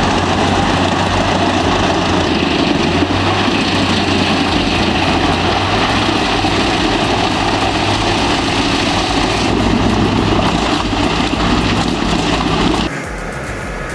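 Large wood chipper running, its engine giving a steady low drone under a broad, noisy roar of machinery. Near the end the sound cuts off suddenly to a quieter, different machine hum.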